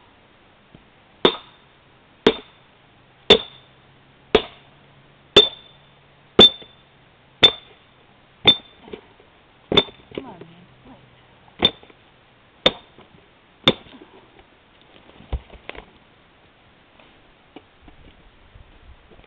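An 8 lb splitting maul striking a steel wedge set in a seasoned birch log: about a dozen sharp, ringing metal-on-metal blows roughly a second apart. The wood crackles as it splits about ten seconds in, and a dull thump follows a few seconds after the last blow.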